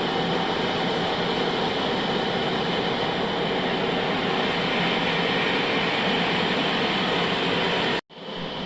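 Old bandsaw sawmill running, its blade sawing through a log with a steady dense mechanical noise. It cuts off abruptly near the end, then a quieter steady machine noise resumes.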